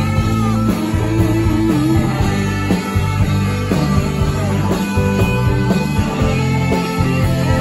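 A live rock band playing an instrumental passage: an electric guitar holds and bends sustained notes over bass and drums.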